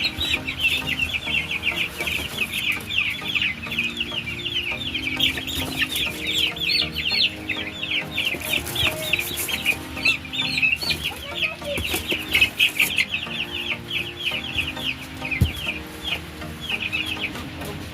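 A flock of young chickens cheeping without pause: many short, high-pitched peeps overlapping, several a second.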